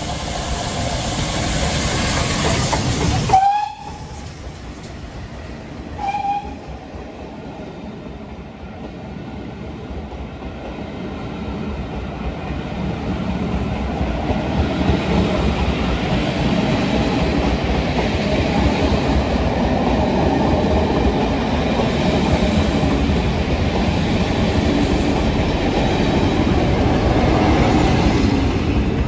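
GWR steam locomotive passing at speed with a train of coaches. A steam whistle blast sounds about three seconds in and a short second blast follows a few seconds later. Then comes a long rumble and clickety-clack of the coaches rolling by, growing louder.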